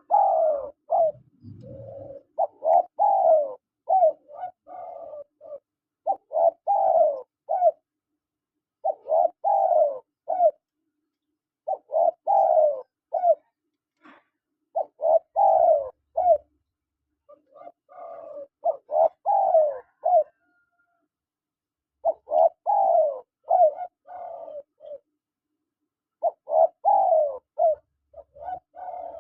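Spotted doves cooing: repeated phrases of several soft falling coo notes, one phrase every three to four seconds.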